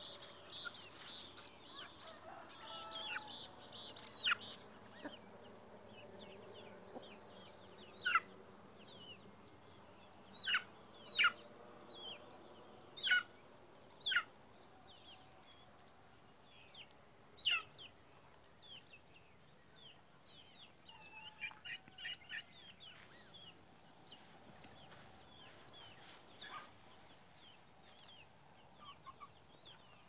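Wild birds calling at dawn: scattered sharp, quick downward chirps, with a run of four loud, high-pitched notes about three quarters of the way through, over faint clucking from free-range chickens.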